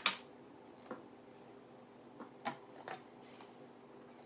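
Plastic tumblers being handled and set down on a table: a sharp click at the start, then a few lighter knocks and clicks about two and a half to three and a half seconds in.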